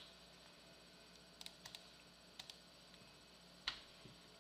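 Near silence with a few faint, scattered clicks from computer keyboard and mouse use: a small cluster about a second and a half in, two more around two and a half seconds, and a single slightly louder click a little before four seconds.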